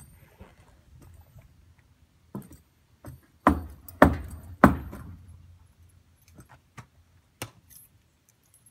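Three loud hollow thumps about half a second apart: boots stepping down onto a plank flatbed trailer deck. A few fainter knocks come before and after them.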